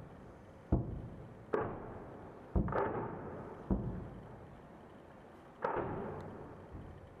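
Distant explosions of rocket and artillery shells: five sharp blasts at uneven intervals, each trailing off in a rumble that fades over about a second.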